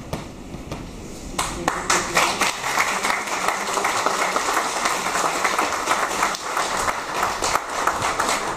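Audience applauding, the clapping swelling in about a second and a half in.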